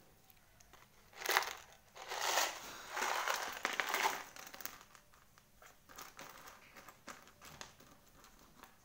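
Small craft beads and foam pieces rattling in a plastic jar and tipped out onto the table in three noisy bursts, followed by light scattered clicks as the pieces are moved about.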